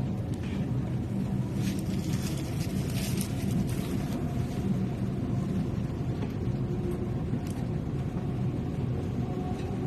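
Dubai Metro train running between stations: a steady rumble of wheels and motors heard from inside the carriage, with a few brief hissing swishes.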